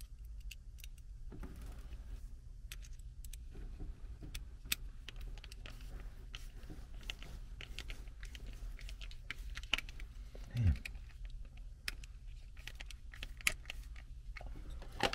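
Scattered light clicks and small metallic clinks from hands handling a furnace hot surface ignitor, its metal mounting bracket and a hand tool, over a steady low hum.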